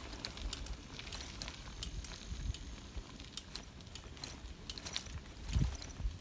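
Bicycle tyres crunching and crackling over a gravel trail, with scattered clicks and rattles from the bike and a low rumble underneath; a louder thump about five and a half seconds in, as from a bump.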